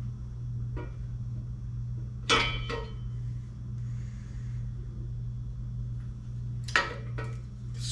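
Small-block Chevy crankshaft clinking metal on metal against the block's main bearing saddles as it is lowered and worked square into the bearings. There is a ringing clink a little over two seconds in and a quick cluster of knocks near the end, over a steady low hum.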